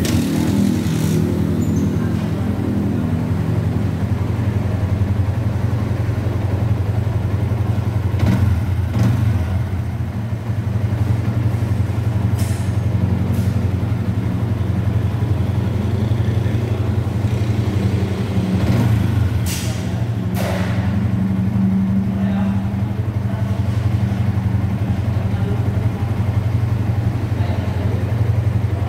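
Yamaha MX King 150cc single-cylinder four-stroke engine idling steadily after reassembly, with a few short clicks or taps over it.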